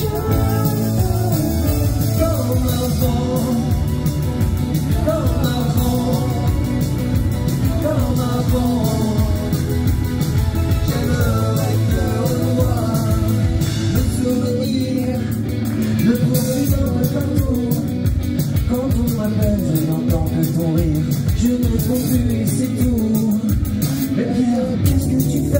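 A rock band playing live, a man singing into a microphone over electric guitar.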